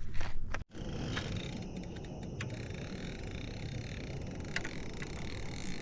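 Steady low outdoor rumble with a few faint clicks; the sound cuts out for an instant under a second in.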